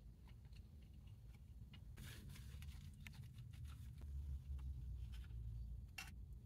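Faint rustling and crinkling of fast-food packaging with scattered small clicks while eating, including a brief rustle about 2 s in and a sharp click near the end, over a low steady hum.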